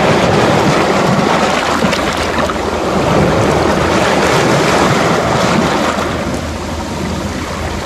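Sea waves breaking and washing over the rocks and pebbles of a stony shore, a loud steady rush of surf.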